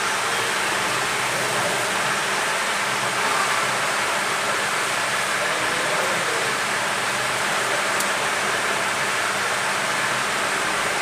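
Steady, even rushing hiss with a faint low hum underneath, unchanging throughout: air noise such as a fan or blower running.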